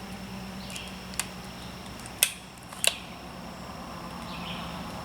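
Three short, sharp clicks about a second apart, the middle one the loudest, over a faint steady hum.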